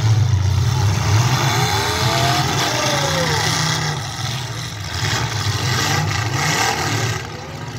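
Demolition derby cars' engines running together in a steady low rumble. About two seconds in, one engine revs up and back down.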